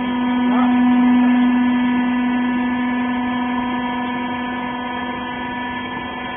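Hydraulic rags baler's electric motor and hydraulic pump running with a steady hum. It swells about a second in and eases off gradually toward the end.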